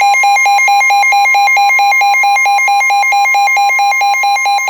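Emergency Alert System attention tones for a flood warning, playing from two radios at once: a weather radio and an AM broadcast station. A loud steady tone near 1 kHz sounds with a second, lower tone that pulses rapidly.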